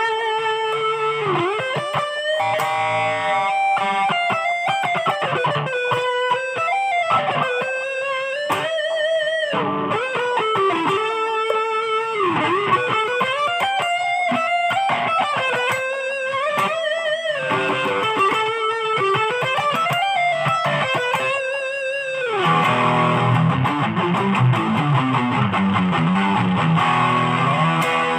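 Ibanez GIO HSS electric guitar played through a Line 6 Spider III 15 amp: single-note lead lines with vibrato and bends. About 22 seconds in it changes to a fuller, denser sound.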